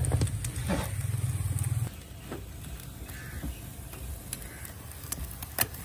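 A low, pulsing motor-like drone stops abruptly about two seconds in. It leaves the quieter scraping and scattered clicks of a metal scraper trimming leather-hard clay from a flower pot turning on a potter's wheel.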